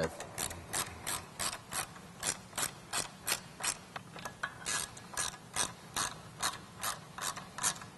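Hand ratcheting driver clicking as it runs T25 Torx screws in to secure a Jeep's factory taillight, about three to four clicks a second with a brief pause near the middle.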